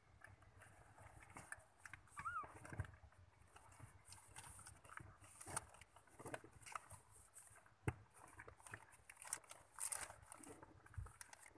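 Faint rustling and small scattered clicks from a mother cat and her nursing kittens shifting in a cardboard box, with one brief high squeak about two seconds in.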